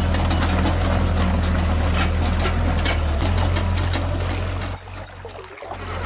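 Simulated heavy excavator engine idling: a steady low engine hum with a light clatter over it, from the Huina 1550 RC excavator's sound. It drops away abruptly about five seconds in and comes back just before the end.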